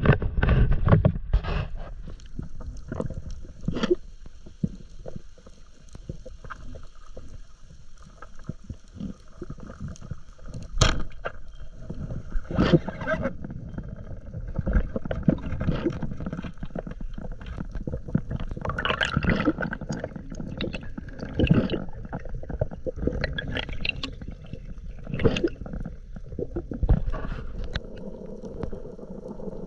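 Wind on the microphone and water against a small boat's hull for the first couple of seconds, then underwater sound picked up by a diving camera: muffled water movement with many scattered clicks and knocks and a few louder surges.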